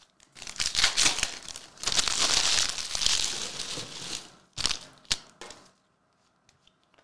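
A Panini Revolution basketball hobby pack's wrapper being torn open and crinkled: a crackly rustle lasting about four seconds, loudest in the middle. Two short, sharp sounds follow about a second later.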